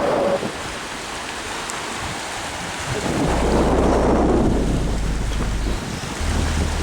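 Wind blowing across the camcorder's microphone: a steady rushing noise, with a heavy low buffeting rumble that comes in gusts from about three seconds in.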